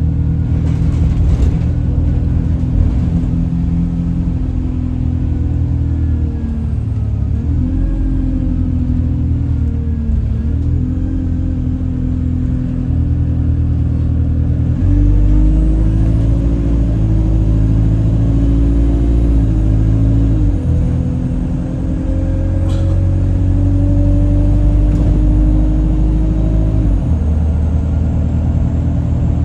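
Alexander Dennis Enviro 200 bus heard on board while driving: the engine's low running sound under a strange droning tone that dips and rises again several times with road speed. The uploader suspects the gearbox, as the noise was much louder towards the front.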